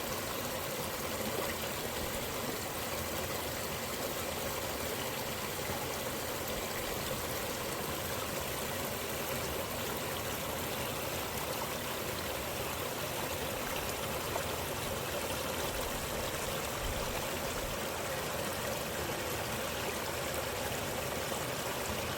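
Steady rushing of running water, like a stream, even and unbroken throughout.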